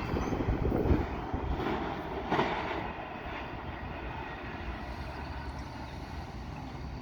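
Canadian National intermodal freight train rolling past: a steady rumble of wheels on rails, louder for the first few seconds with a brief louder clatter about two and a half seconds in, then settling to an even level.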